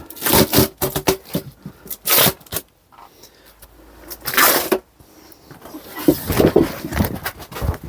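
Hand tools scraping and knocking against a car wheel rim in short irregular bursts while the old rubber tyre valve is cut off, with a busier run of clatter near the end.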